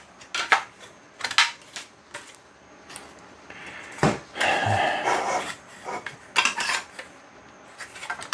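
Parts of an RC boat stand clicking and knocking together as they are slotted into one another, with a scraping, rustling stretch in the middle.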